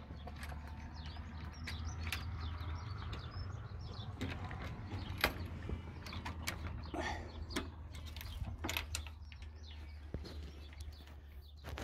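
Handling noise from a phone microphone rubbing and knocking against a sweater as it is carried: a steady low rumble with many scattered clicks and knocks, the sharpest about five seconds in.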